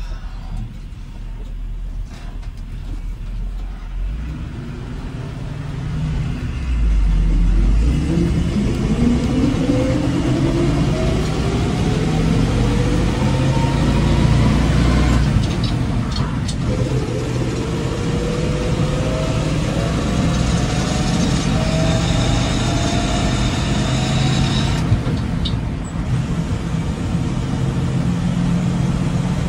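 1957 Chevrolet Task Force 3800 tow truck's 283 cubic-inch V8 pulling the truck away through its four-speed manual gearbox: the engine note rises, breaks off for a gear change about halfway through, rises again, drops at a second shift a few seconds before the end and then runs steady.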